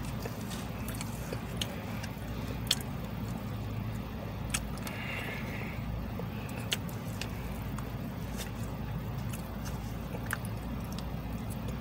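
Steady low hum of a car running, heard inside its cabin, with scattered sharp clicks and taps of a plastic fork against a plastic dessert cup as someone eats.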